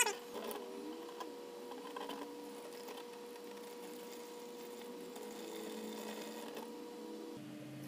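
Engine oil trickling faintly from a partly released drain plug into a drain pan. A steady low hum runs underneath and stops near the end.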